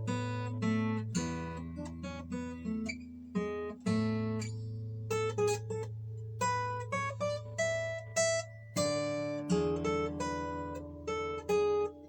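Yamaha LL16L all-solid acoustic guitar, with an Engelmann spruce top and rosewood back and sides, played fingerstyle. Single plucked melody notes and arpeggios ring over sustained low bass notes in a loose, improvised line.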